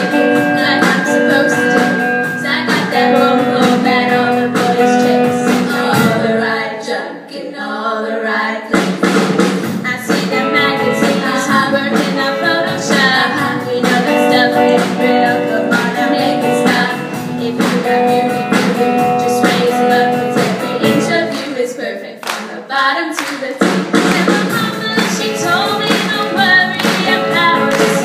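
A girls' vocal group singing live with electric guitar, drums and upright double bass, over a steady beat of handclaps. Twice the bass and low accompaniment drop out for a couple of seconds, leaving mainly the voices and claps.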